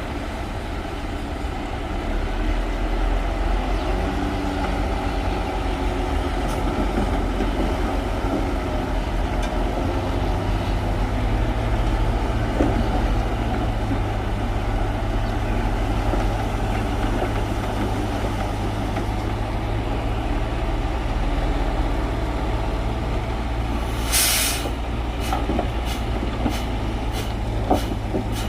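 Bulldozer's diesel engine running steadily under load, its low drone growing heavier about a third of the way through. Near the end comes a short hiss, followed by sharp clicks about twice a second.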